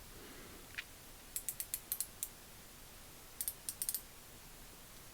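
Mini ratchet with its cover off, clicking as the pawl skips over the fine 72-tooth gear while being turned. The clicks are light and come in two quick runs of about half a dozen each, with a single click just before.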